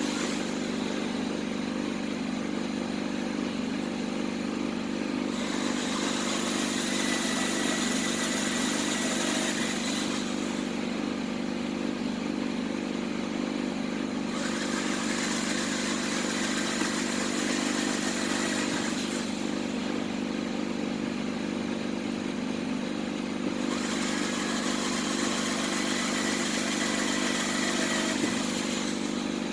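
A motor running steadily with a low hum, while a hiss rises and falls every few seconds.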